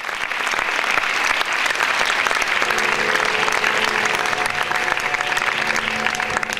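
Audience applauding steadily. About a third of the way in, a steady drone of held musical notes starts up underneath.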